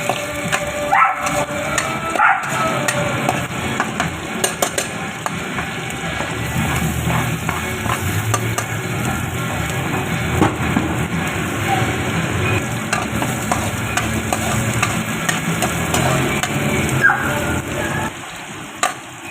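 Chicken pieces for adobo sizzling in a pan as they are stirred, with a utensil clicking and scraping against the pan now and then.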